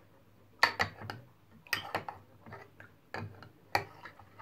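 A metal spoon stirring milk in a ceramic mug, clinking against the mug's inside about half a dozen times at uneven intervals, each clink sharp with a short ring.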